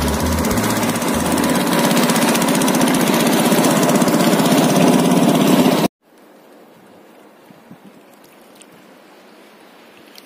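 A boat engine running steadily and loudly. It cuts off abruptly about six seconds in, leaving a much quieter steady background with a few faint ticks.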